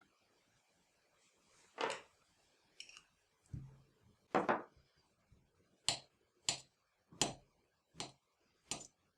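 A series of short sharp knocks and taps of kitchen work on a work surface: a few irregular ones at first, then a steady run of one about every 0.7 s in the second half.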